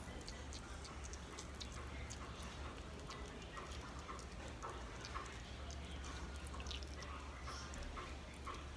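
Distilled water squirted from a squeeze wash bottle onto potting soil, heard as many small drips and soft splashes, over a steady low hum.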